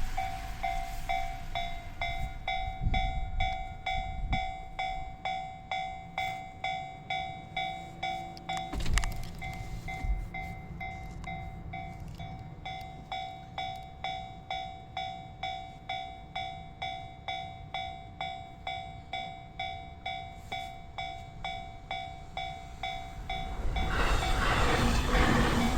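Japanese railroad crossing warning bell ringing in a steady, evenly spaced rhythm. Near the end the rumble of an approaching train rises under it.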